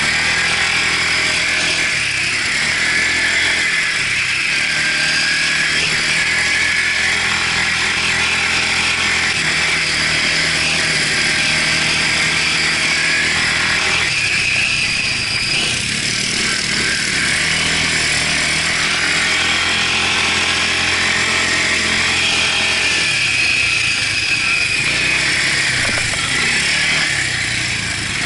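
Quad bike (ATV) engine running under way, heard close up from a camera mounted on the bike, its pitch shifting with the throttle and easing off near the end.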